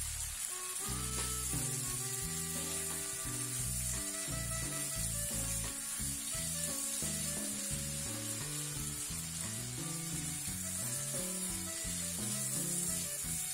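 Chicken pieces sizzling as they fry in oil in a non-stick pan, stirred with a silicone spatula, over background music.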